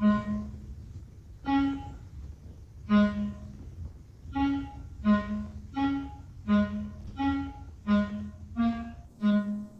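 Orchestral film score playing about eleven short single notes that alternate between two close pitches, over a low steady rumble. The notes come about every second and a half at first and speed up to roughly one every 0.7 s. They mark the first raindrops falling.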